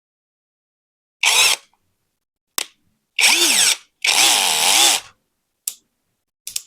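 Brushless cordless drill's motor run in three short bursts, spinning up and winding down with the trigger, the last burst the longest at about a second, with a few short clicks between.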